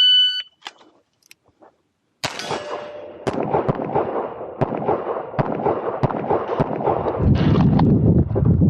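Electronic shot-timer start beep, then after about two seconds a string of handgun shots roughly a second apart among continuous clatter and rustling of movement, growing heavier and lower-pitched near the end.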